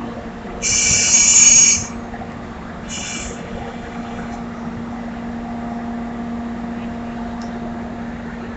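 EF64 electric locomotive's air whistle sounding two blasts, a long shrill one and then a short one. A steady low hum from the locomotive runs underneath.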